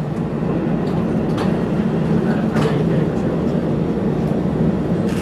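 Interior running sound of a Dm7 diesel railbus moving slowly: a steady drone and rumble, with a few faint clicks.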